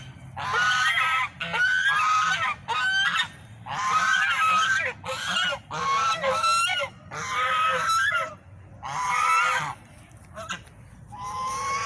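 Swans honking loudly: a run of about ten repeated calls, each half a second to a second long with a bending pitch, about one a second.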